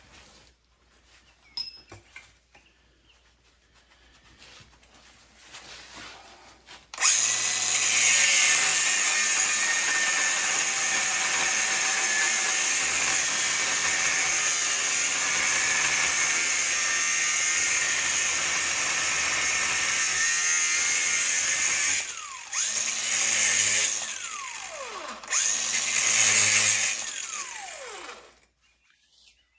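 A handheld power tool starts about seven seconds in after a few light clicks and runs steadily for about fifteen seconds. It then runs in three shorter bursts, each winding down with a falling pitch when the trigger is released, and stops near the end.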